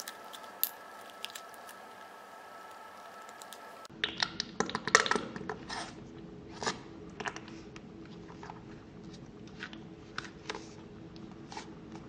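Small plastic bottle of liquid foundation squeezed upside down over a bowl: scattered soft clicks and crackles as the bottle flexes and the foundation spurts out, more of them from about four seconds in.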